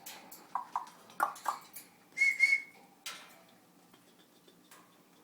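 Pet parrot making a few short chirps, then one loud, steady, high whistle about two seconds in, followed by a single click.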